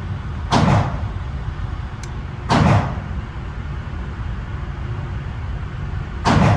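Three gunshots, each with a short echo: one about half a second in, another two seconds later, and a third near the end.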